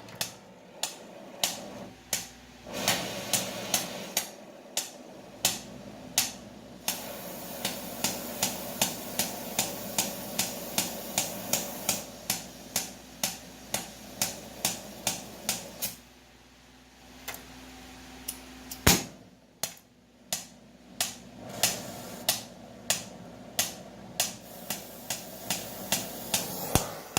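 Oxy-acetylene torch with a dirty tip, its flame popping sharply about twice a second over a steady hiss; the pops and hiss drop away for a couple of seconds past the middle, then resume. The popping is the sign of the fouled tip.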